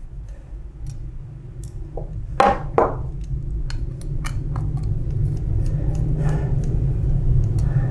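Hand screwdriver working the screws out of a photocopier drum cleaning blade: scattered small metal clicks and clinks, with two louder knocks about two and a half seconds in. A low hum underneath grows louder.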